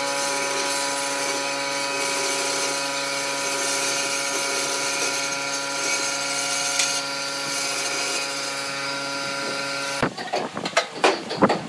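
Band saw running steadily as its blade cuts through a cast block of blue epoxy resin and wood, a constant motor and blade tone with a cutting hiss. About ten seconds in it stops abruptly, and a quick series of sharp knocks and clicks follows.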